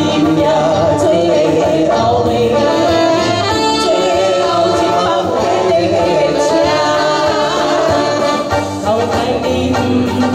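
A man and a woman singing a duet into microphones over an amplified light-music band.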